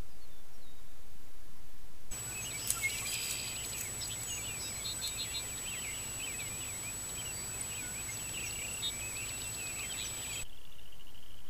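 Steady hiss for about two seconds, then many birds singing and chirping in grassland over a thin steady high tone and a faint low hum. Near the end this changes to a steady, pulsing trill.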